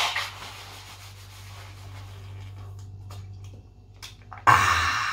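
A nose blow into a paper towel tails off in the first moment. About four and a half seconds in comes a sudden loud hiss as the cap of a plastic bottle of cola is twisted open and the gas escapes, fading over about a second.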